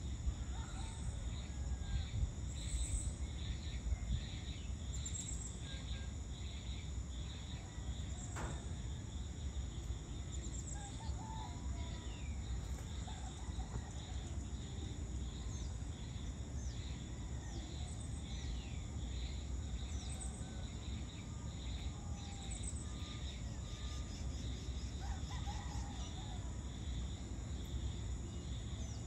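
Evening insects trilling without a break in high, pulsing bands. Short falling bird chirps and whistles come now and then, over a steady low background rumble.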